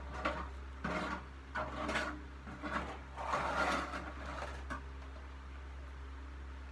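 Several short scraping and rustling noises of junk being picked up and moved, stopping about five seconds in, over a steady fan hum.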